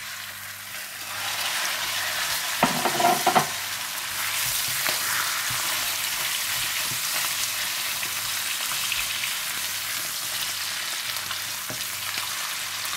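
Chicken pieces frying in hot oil in a pan, a steady sizzle that grows louder about a second in. There is a brief clatter in the pan about three seconds in.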